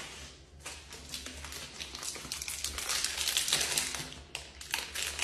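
Thin plastic wrapper crinkling and crackling in quick, crowded bursts as an individually wrapped cheese slice is peeled out of it, loudest near the middle.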